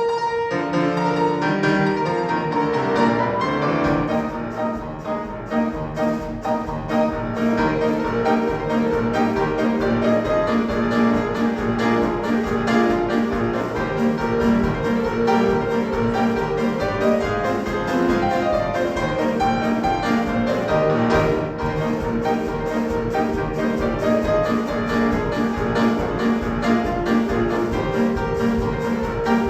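Piano and drums playing a lively early-1900s march-style two-step at a steady, brisk beat.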